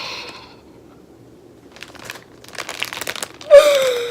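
Plastic packaging crinkling in quick, dense crackles as a squishy toy is pulled out of its bag, ending in a short, loud vocal "ooh" that falls in pitch.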